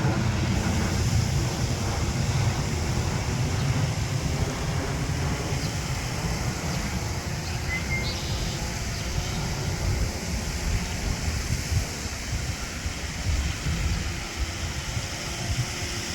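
Wind buffeting the microphone: an uneven low rush of noise with a steady hiss above it, and a brief high chirp about halfway through.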